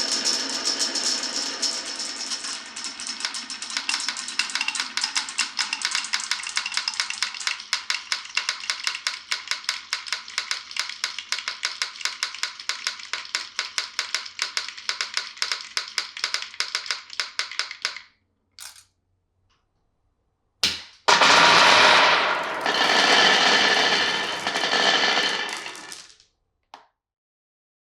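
Glass marbles clattering down a wooden marble run: a fast, even train of sharp clicks, several a second, thinning out and stopping after about eighteen seconds. After a short gap comes a single knock, then a loud rushing noise that swells and fades for about five seconds before cutting off.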